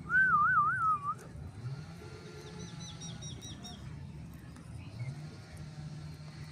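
Alexandrine parakeet giving a loud warbling whistle that wavers up and down about four times over a second. A moment later comes a quick series of about six faint, high chirps.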